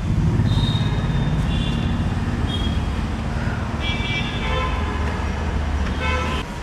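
Road traffic running steadily, with several short vehicle horn toots.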